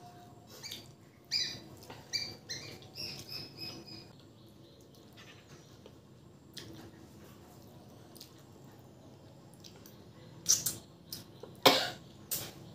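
A run of short, high chirps from a small bird in the background during the first few seconds, then a few loud, wet smacks from the mouth as a handful of rice and dal is eaten near the end.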